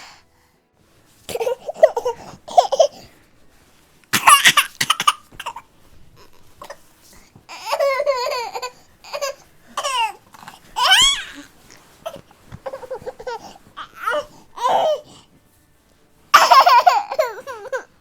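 Baby vocalising in a string of short, high-pitched, wavering bursts with brief pauses between them, whiny fussing that at moments sounds close to laughing.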